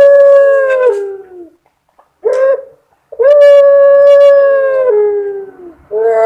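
Puter pelung dove giving its long drawn-out 'crying' coo. One held call ends about a second in with a falling tail, a brief call follows, then a second long steady call runs about two seconds before sliding down in pitch, and another call begins near the end.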